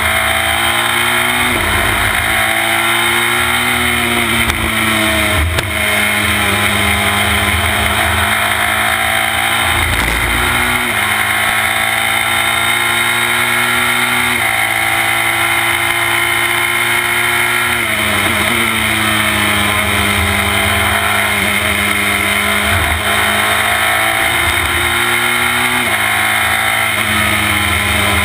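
Formula Renault 2.0 single-seater's two-litre four-cylinder engine at racing speed, heard from on the car: the engine note climbs hard through the revs, drops a step at each upshift, and falls away several times under braking and downshifts.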